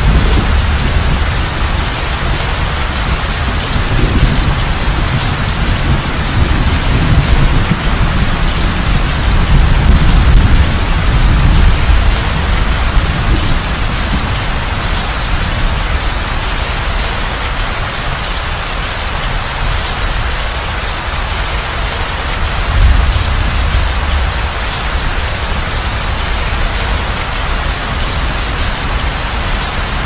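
Thunderstorm: steady rain hissing, with low thunder rumbling under it near the start and rolling up again about three-quarters of the way through.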